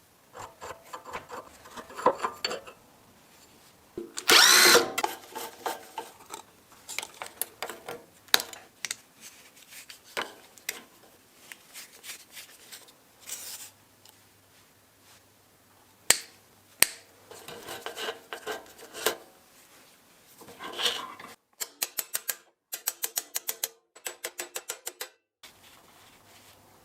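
Metal tools and parts of a bench drill press clinking, scraping and rattling in short, irregular bursts as the machine is taken apart. About four seconds in there is a louder, rasping burst, and near the end a quick run of clicks is cut off several times.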